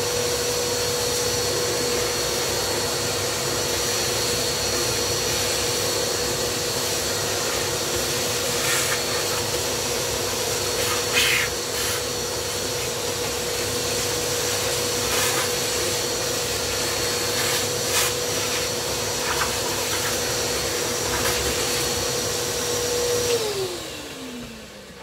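Wet-and-dry shop vacuum running steadily, sucking up wood shavings through its hose, with a few short clicks and knocks along the way. Near the end it is switched off and the motor winds down, its hum falling in pitch.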